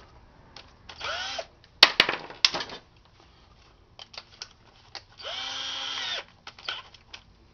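Electric power drill run in two short spurts: a brief spin-up about a second in, then a steady run of about a second that winds up and winds down, with sharp clicks and knocks of metal and plastic parts between.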